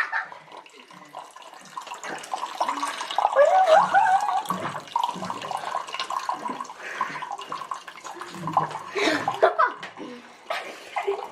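Water running steadily from a water dispenser's tap into a drinking glass, a continuous pouring sound.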